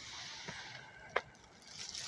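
A steady outdoor hiss with two short clicks: a soft one about half a second in and a sharper, louder snap just past one second.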